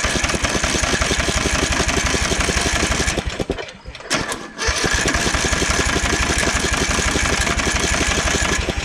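Riding lawnmower engine being cranked over by its starter, worked with a screwdriver in place of the key, with the throttle turned up. It turns over in a fast even rhythm, breaks off about three and a half seconds in, then turns over again for about four seconds before stopping.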